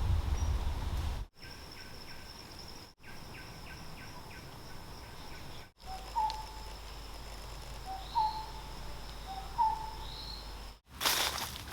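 Forest ambience made of short cut-together clips: a steady high-pitched insect drone, with a bird giving a short whistled call three times in the second half. A low rumble fills the first second.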